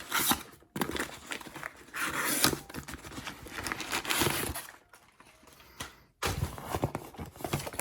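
Shipping packaging being handled and opened: irregular rustling and crinkling of paper and plastic, with a short lull past the middle before more rustling resumes.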